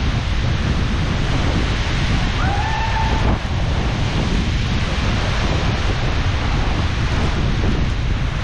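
Waterfall rushing with a steady, loud roar, mixed with wind buffeting the microphone. A short higher-pitched call that rises and falls cuts through about two and a half seconds in.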